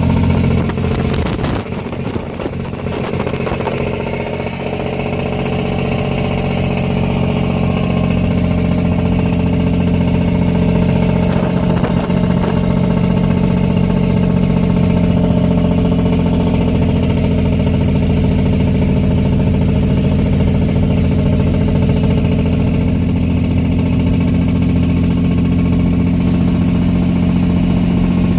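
Diesel engine of a heavily loaded Peterbilt semi-truck running steadily under way. The engine note dips briefly about two seconds in, then holds an even drone.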